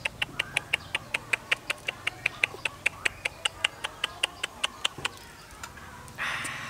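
A rapid, even series of light clicking or kissing sounds made with pursed lips, about five a second, stopping about five seconds in. A short burst of noise follows near the end.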